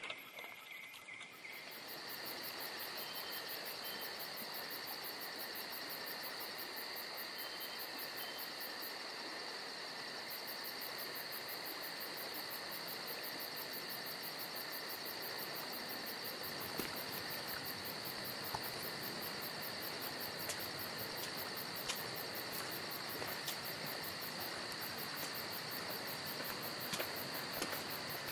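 Steady shrill insect chorus, a continuous high drone with a fainter lower band beneath it, coming in about a second and a half in. A few faint clicks show over it near the end.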